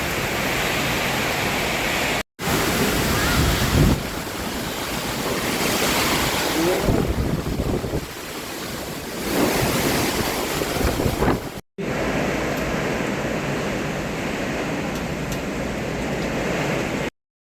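Strong storm wind gusting and buffeting the microphone, a loud rushing noise that swells and eases. It breaks off abruptly twice.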